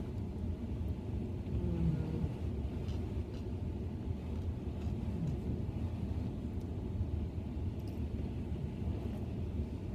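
Steady low rumble of a car heard from inside its cabin, with faint chewing sounds over it.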